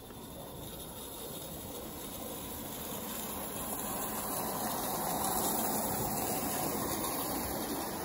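Live-steam garden-scale model locomotive pulling carriages past, its running sound growing louder as it approaches, loudest about five seconds in.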